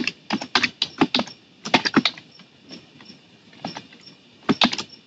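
Computer keyboard typing: a quick run of keystrokes, then a few short bursts of clicks with pauses between.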